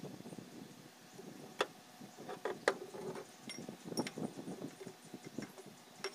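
A few sharp metallic clinks and taps of tools and parts being handled, one of them ringing briefly about two and a half seconds in, with a small cluster near four seconds.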